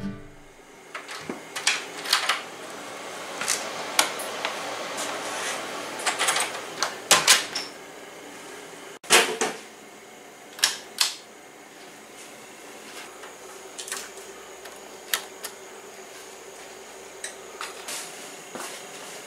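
Scattered sharp clicks and knocks in a small room, among them the pull-chain switch of a hanging fluorescent shop light being pulled about ten seconds in, over a faint steady hiss.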